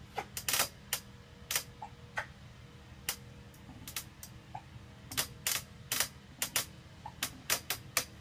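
Irregular sharp clicks, roughly two or three a second and some in quick pairs, over a faint steady hum.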